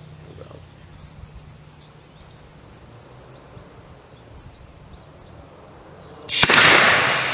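Rocket engine on a test stand lighting with a hard start: after a few seconds of quiet, a sudden sharp bang near the end, followed at once by the loud, steady rushing roar of the exhaust.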